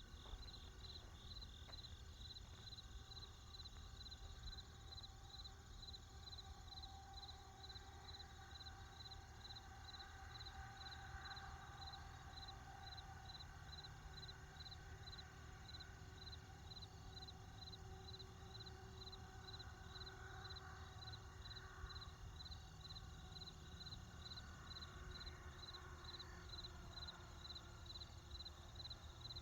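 Faint insect chirping, evenly spaced at about two chirps a second, over a low background rumble.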